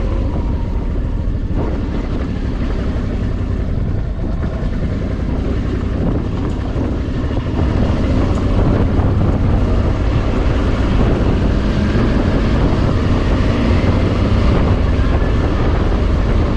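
Suzuki V-Strom DL650 motorcycle's V-twin engine running under way, with wind rushing over the microphone; it gets louder about halfway through.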